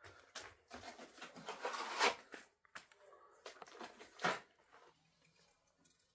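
Wet plaster being slapped and smeared by hand onto a cinder-block wall: a run of rough scraping strokes, the loudest about two seconds in and again just after four seconds, stopping about five seconds in.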